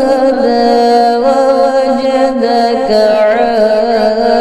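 A man's voice reciting the Quran in the melodic tajwid style. He sings the word 'fahada' and holds its long final vowel for several seconds, turning the pitch in slow ornaments.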